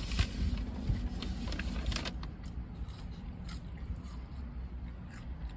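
Low steady rumble inside a car's cabin with the engine running, with scattered small clicks and rustles of someone eating fast food.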